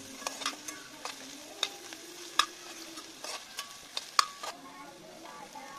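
Slotted steel ladle stirring and scraping chopped onions, carrots and green beans frying in oil in an iron kadai, with irregular sharp clinks of metal on metal, the loudest about two and a half and four seconds in. A steady sizzle runs underneath.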